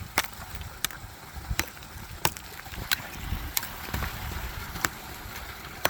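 Hammer striking thick pond ice again and again: about eight sharp blows, roughly one every two-thirds of a second, over a steady low rush in the background.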